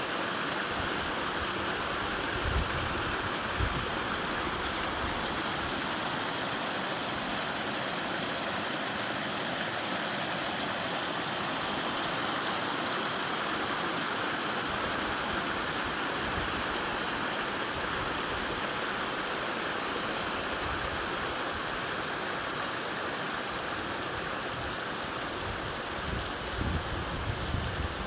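Steady rush of water from a mountain stream and waterfall. A few low thumps come a few seconds in and again near the end.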